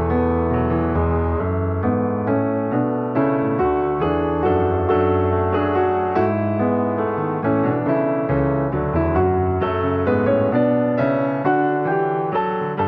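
Background keyboard music: a flowing piano-like melody of quick successive notes over held bass notes.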